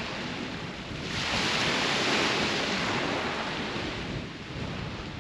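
Sea waves breaking and washing up the shore: one wave surges about a second in and dies away near the end.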